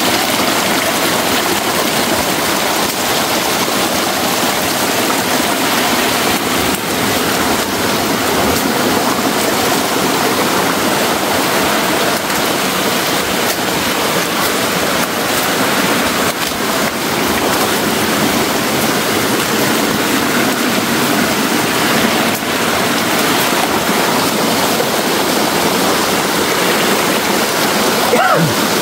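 Rushing water of a forest stream: a steady, loud, unbroken rush.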